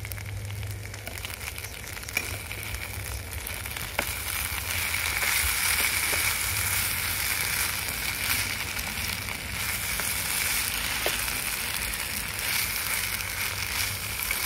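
Food frying in a pan over a camp stove: a steady sizzle with a few small pops, getting louder about five seconds in.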